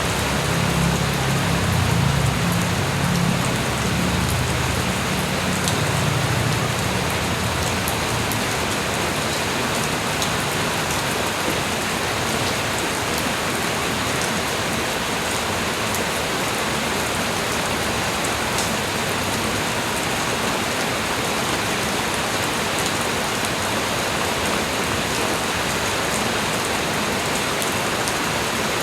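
Light rain falling steadily: an even hiss of drops with occasional sharper drop ticks. A low rumble sits under it for the first several seconds, then fades.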